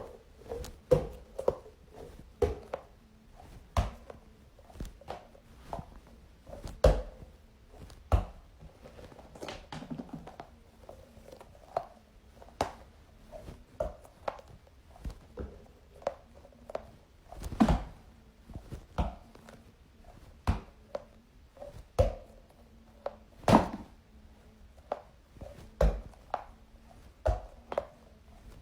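Small objects being handled and set down on a hard surface: irregular taps, thunks and clicks, some louder knocks among quieter handling noise.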